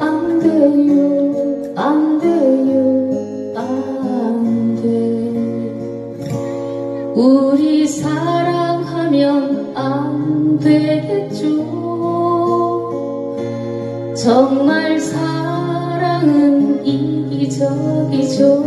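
A woman singing a Korean ballad, accompanied by two acoustic guitars playing chords.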